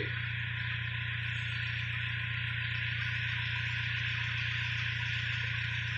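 Toyota Innova's 2KD turbodiesel idling steadily: a low, even engine hum under a constant hiss. The engine carries an upgraded turbo and injectors, an intercooler and a remapped ECU.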